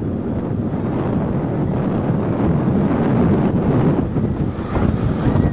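Steel roller coaster train running fast through its track, heard from a rider's seat: a steady low rumble of wheels on the rails mixed with wind buffeting the microphone.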